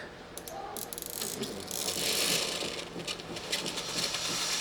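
Baumann Living espresso machine warming up for a descaling cycle: a short spell of rattling and clicking, then a hiss that starts about two seconds in and keeps growing.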